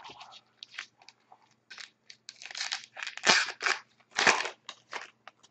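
Hockey card pack wrapper being torn open and crumpled by hand: a string of short rustles, the loudest about three and four seconds in.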